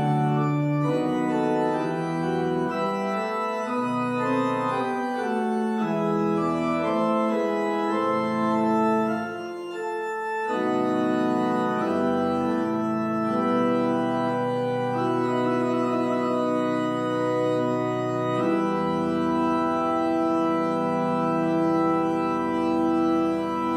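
Church organ playing the postlude: sustained chords that change every second or two, with a short break in the sound about ten seconds in and deep pedal notes joining in about three-quarters of the way through.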